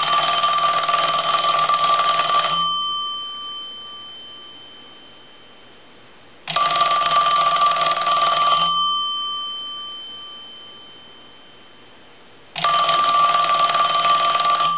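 Princess telephone's bell ringer ringing three times, about two seconds on and four off, as a ringer test after its cover has been reinstalled. Each ring leaves a bell tone that dies away slowly.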